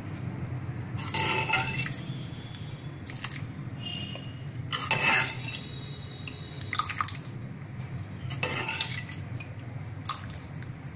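Steel ladle scooping sambhar from a pan and pouring it into a ceramic bowl: several scattered clinks of the ladle against pan and bowl, with splashes and drips of the thin lentil stew. A steady low hum runs underneath.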